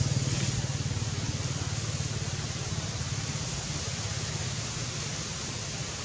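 A motorcycle engine running with a low, fast, even pulsing beat that fades steadily, over a steady hiss.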